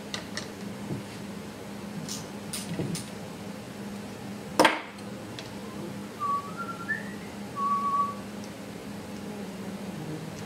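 Light metallic clicks and clinks of engine parts being handled, with one sharp clank a little under halfway. Then a person whistles a few short notes, stepping up in pitch and ending on a longer, lower note. A steady low hum runs underneath.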